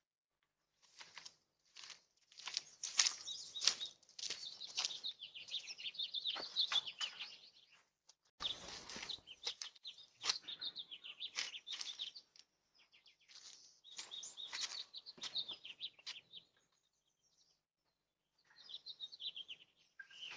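Birds chirping in quick, repeated short calls, with a few brief pauses. About eight seconds in there is a second-long noisy burst.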